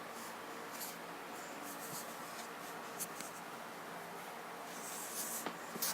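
Faint scratching and rustling over a low steady hum, with short scrapes about a second in, at three seconds and near the end.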